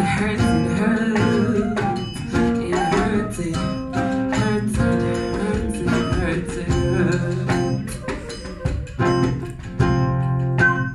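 Live acoustic guitar music, quickly plucked notes over held chords, with a voice singing along.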